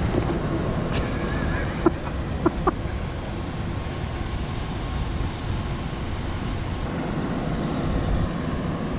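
Steady low rush of water pouring over the dam, with three short clicks about two seconds in.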